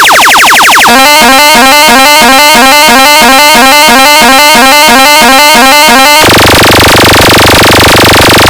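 Heavily distorted, full-volume electronic competition sound-check track: a buzzing pulsed tone, then about three rising synth chirps a second for about five seconds, switching about six seconds in to a sustained distorted buzz with heavy bass.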